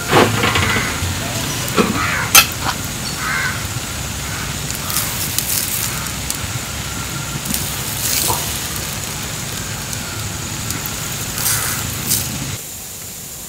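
Wood fire crackling under a barrel smoker, with scattered sharp pops over a steady noisy background. Near the end the sound drops suddenly to a quieter steady hiss.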